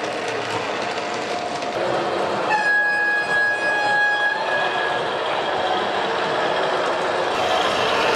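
Gauge 1 model diesel locomotive and its coaches rolling over the track with a steady running noise, and the locomotive's horn sounding once for about two seconds, starting about two and a half seconds in.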